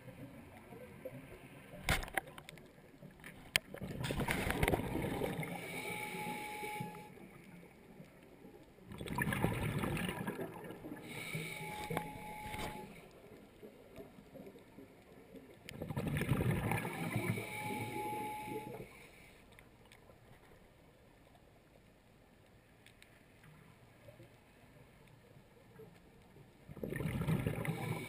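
Scuba diver breathing through a regulator underwater, heard through a camera housing. There are four breaths, each a bubbling rush of exhaled air lasting two to three seconds and mostly ending in a brief steady tone, with a long pause before the last one.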